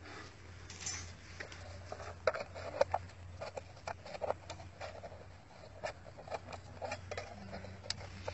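A serrated steel hand trowel scraping in dirt and clinking against a buried metal tin as the tin is pried loose. It comes as irregular sharp clicks and short scrapes.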